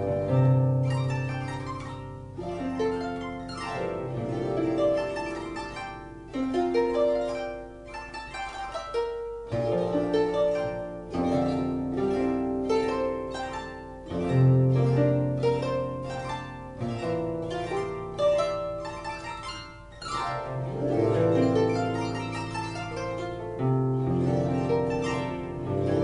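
Harp music: a melody of plucked notes that ring and fade over deeper bass notes, with a new bass note every two to three seconds.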